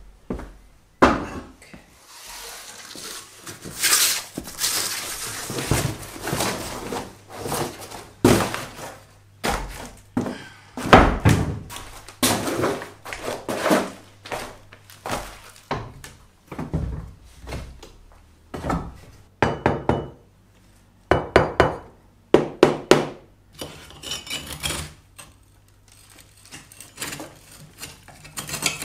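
Knocks, clinks and rustling scrapes of stiff cardboard sheets being laid out over the floor and metal hand tools being handled. Near the end, a steel pointing trowel scratching at the loose mortar in the joints of a stone wall.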